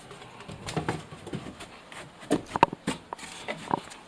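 Irregular knocks and clicks as lumber is shifted and worked into joist hangers, with a quick cluster of sharper knocks in the second half.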